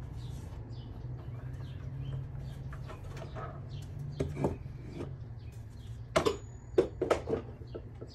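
Wooden boards knocking and sliding on a miter saw's table and fence as they are set in place by hand: light clicks and scrapes, then a cluster of sharp knocks near the end, over a low steady hum.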